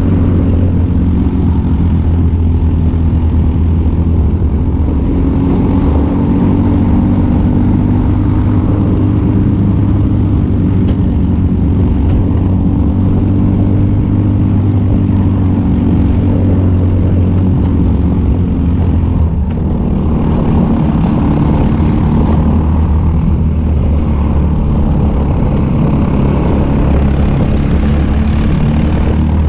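Racing kart engine running hard at high revs, heard from on board, its note climbing gently and dipping briefly about two-thirds of the way through. Wind and tyre noise over the microphone run underneath.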